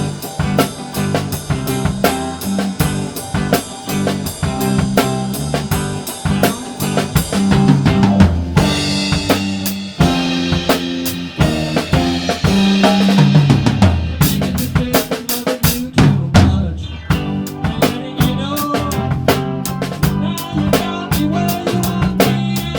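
Rock drum kit played along to a band recording, with a 5.5 x 14 purpleheart stave-segment snare drum and bass drum keeping a steady beat over bass guitar and guitar.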